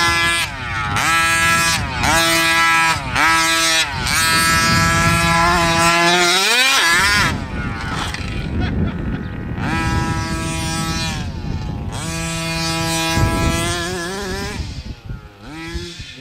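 Small two-stroke gas engine of a 1/5-scale HPI Baja buggy, driven hard, revving up and falling back over and over, about once a second. It drops off briefly about six seconds in, then picks up again a little quieter.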